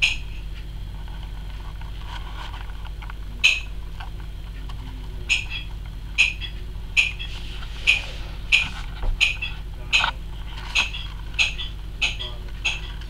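A knife chopping bananas: a steady run of sharp knocks, a little faster than one a second, starting about three seconds in.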